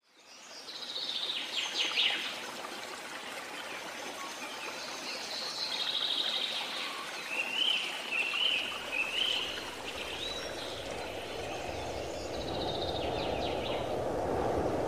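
Small birds singing and chirping, with a short warbled phrase repeated three times about halfway through, over a steady rush of running water that swells over the last few seconds.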